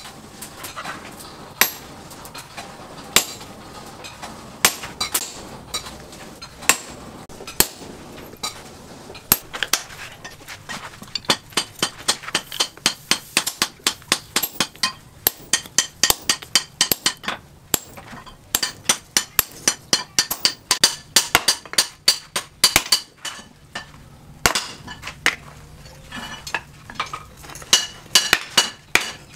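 A hand hammer strikes red-hot leaf-spring steel on a small anvil, each blow ringing metallically. The blows come singly about a second apart at first. From about ten seconds in they become a fast, steady run of several blows a second, with one short break near the end.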